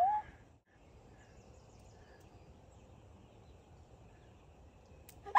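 Quiet outdoor ambience with faint bird calls, and a short rising voice sound at the very start.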